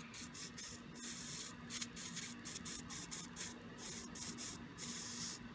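Hot soldering iron tip wiped back and forth across a damp cleaning sponge, hissing in short, repeated strokes.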